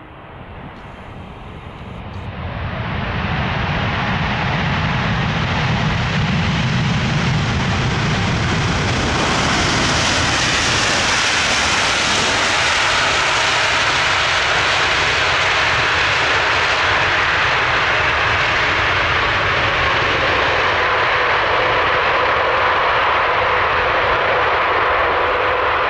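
Cargolux Boeing 747-8F freighter's four GEnx jet engines as it rolls out on the runway just after touchdown. A loud jet roar builds over the first few seconds and is brightest as the aircraft passes about ten seconds in. It then holds steady, with a faint whine slowly falling in pitch.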